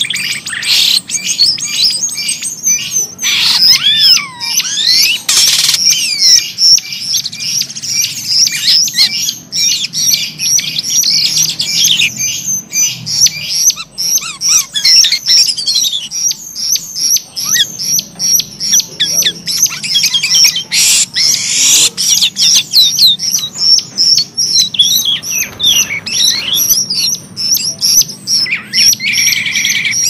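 Caged starlings, a finch-billed myna (jalak rio-rio) and a jalak kapas, singing nonstop: a continuous stream of rapid high chirps, squeaky notes and short sliding whistles.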